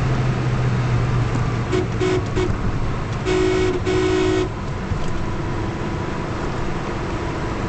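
Cabin noise of a Toyota Corolla AE101 at highway speed, its engine note easing as the car slows from about 130 to 100 km/h. A car horn sounds about two seconds in as a few short toots, then as two longer honks.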